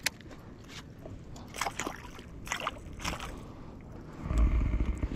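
Water splashing and sloshing at the side of a small boat as a hooked giant snakehead thrashes at the surface, with scattered short splashes and clicks. A low rumble comes in about four seconds in.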